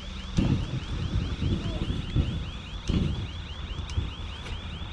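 A high chirp repeating evenly, about five times a second, over low rumbles of wind on the microphone.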